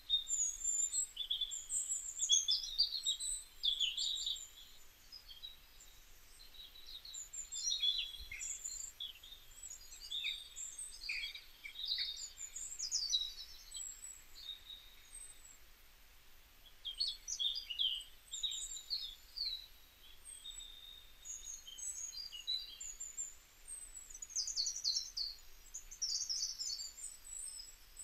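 Small birds chirping and twittering: quick runs of short, high chirps and slurred notes that come in bursts with brief lulls between them.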